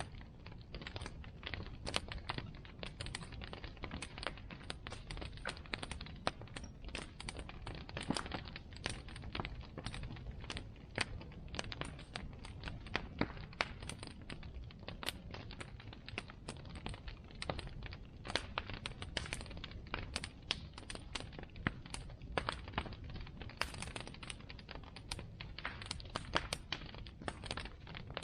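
Bonfire crackling: burning wood giving off irregular snaps and pops over a steady low rumble.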